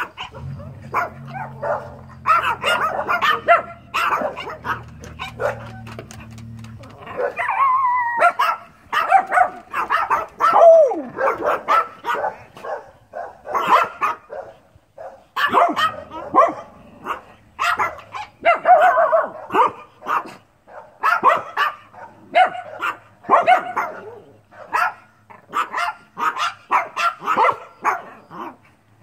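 Dogs barking over and over in short barks and yips with brief gaps, and one drawn-out falling whine about ten seconds in. A low steady hum runs underneath for the first seven seconds or so.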